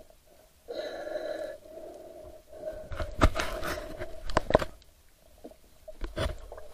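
Muffled underwater sounds picked up by a submerged camera: a hum that comes and goes, with several sharp knocks and scrapes, a cluster of them about three to four and a half seconds in.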